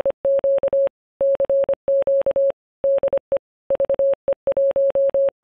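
Morse code sent as a single tone of about 600 Hz, keyed in short and long elements (dits and dahs) grouped into characters with brief pauses between.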